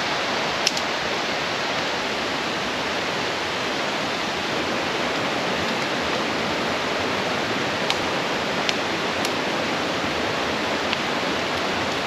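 Snowmelt- and rain-swollen mountain brook rushing in full spate, a steady, even roar of fast water.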